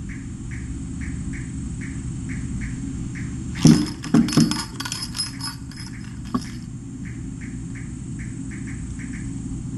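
A short burst of clattering knocks, loudest at the start, over a steady low room hum, with faint short chirps repeating about two or three times a second before and after it.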